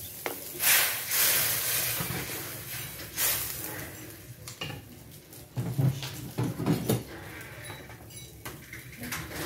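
A cooking utensil stirring simmering paksiw in a stainless steel wok, scraping and clinking against the metal. The longest scrape comes about a second in, and a quick run of clinks and knocks follows around six to seven seconds in.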